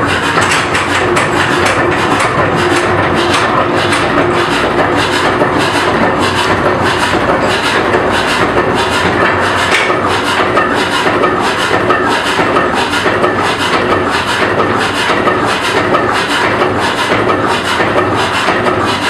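1925 two-cylinder, 40 hp Brons slow-running engine running steadily, with an even, rhythmic knocking beat.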